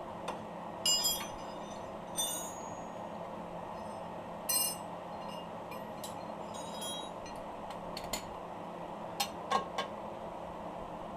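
Metal tools clinking and knocking against metal during hand work on a car's rear suspension: a few ringing clinks spread through, then sharp clicks near the end, over a steady background hum.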